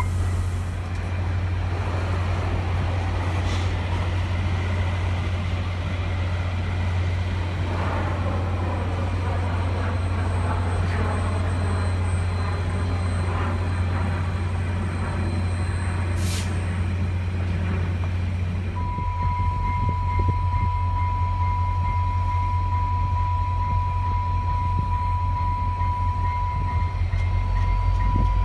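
VIA Rail F40PH diesel locomotive running steadily beside the platform, a constant low engine hum. Around the middle a freight train rolls past on the next track, and in the last third a steady high tone sounds.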